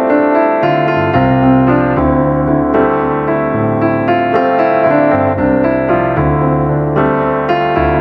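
Piano music: sustained chords with new notes struck about once or twice a second and the bass changing every second or two.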